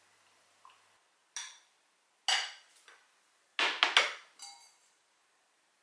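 Glass coffee server, plastic dripper holder and pour-over dripper being handled on a countertop: a few sharp clinks and knocks, then a quick cluster of them, the last one briefly ringing.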